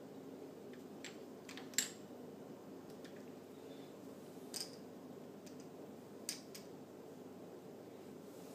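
Light, sharp clicks and taps of plastic Lego parts being handled, five or so spread out, the loudest about two seconds in, over a steady low hum.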